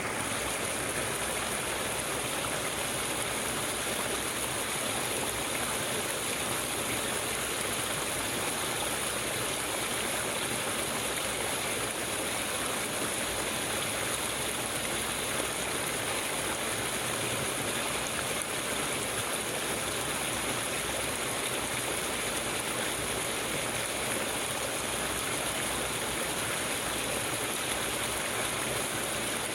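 Flowing water running steadily, an even rushing sound with no breaks.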